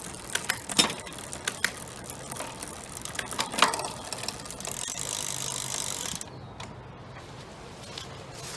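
Bicycle drivetrain turned by pedalling: the chain runs over the rear cogs and derailleur with scattered sharp clicks and ratchet-like ticking. About halfway through, a steadier, louder hiss lasts a second and a half, then the sound drops to a quieter steady run.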